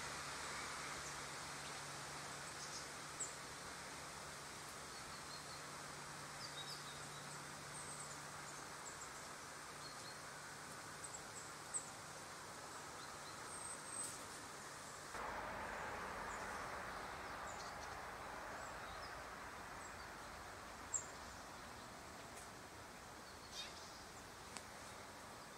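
Quiet outdoor ambience: a steady soft hiss with faint, scattered high bird chirps and a few sharp clicks. The hiss shifts slightly about halfway through.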